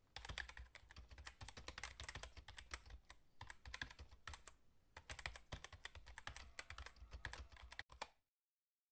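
Faint computer keyboard typing: a quick, irregular run of key clicks with a couple of short pauses, stopping about a second before the end.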